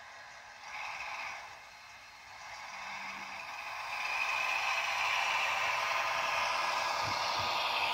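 H0 model locomotives running on the layout: a steady mechanical noise of small motors and wheels on the track that grows louder about four seconds in.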